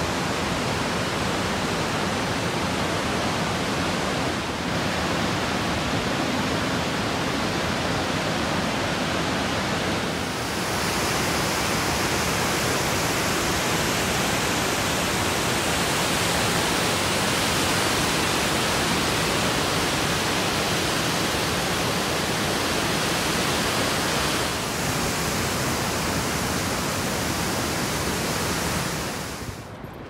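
Spokane Falls: a steady, loud rush of whitewater pouring over the falls and a dam spillway on the Spokane River. The rush drops away just before the end.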